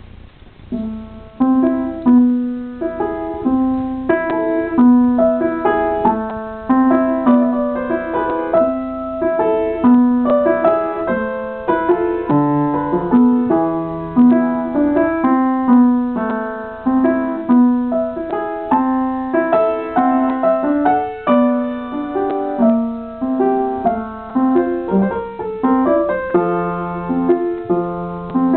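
Upright piano played solo, starting about a second in: a flowing piece, a steady repeating lower figure under the melody.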